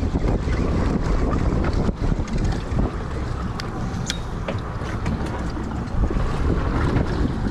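Wind buffeting the microphone over the wash of choppy sea around a small boat, with a few light clicks in the middle.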